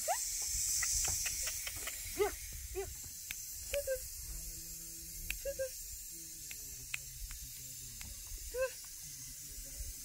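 A few short animal calls over a steady hiss, with scattered light clicks.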